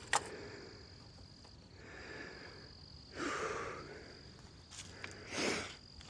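Quiet outdoor ambience with a steady high insect tone, typical of crickets, broken by one sharp click just after the start and two short rustling handling noises, about three seconds in and near the end.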